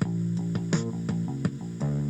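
Instrumental break in a song: guitar and bass guitar playing over a steady drum beat.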